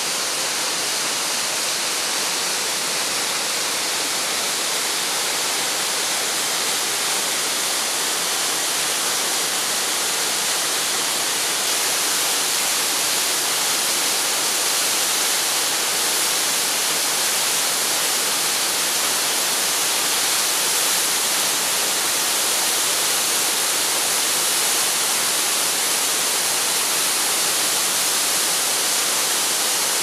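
Waterfall plunging into its pool: a steady, unbroken rush of falling water with a lot of hiss.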